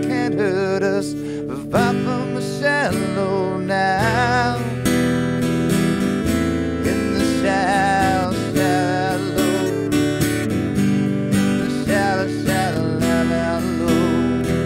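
A man singing, holding notes with a wavering pitch, over a strummed acoustic guitar.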